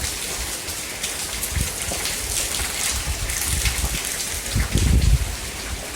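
Heavy cyclone rain pouring down steadily, with gusts of wind buffeting the microphone in low rumbles about four and a half to five and a half seconds in.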